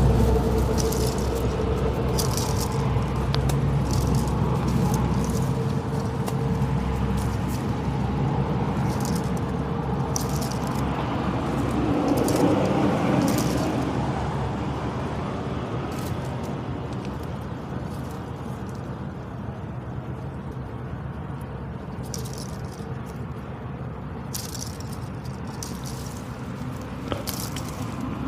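Buffalo flapping its ears against its head, giving irregular sharp slaps every few seconds. Under them runs a low rumble that fades over the first several seconds.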